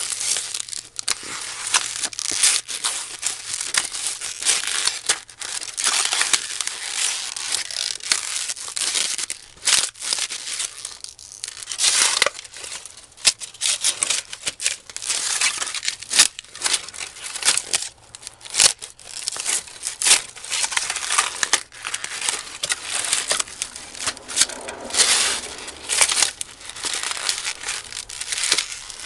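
Styrofoam take-out container being stomped and crushed under Harley-Davidson Slash boots on concrete. Continuous crunching and crackling, broken by many sharp cracks as the foam snaps into pieces.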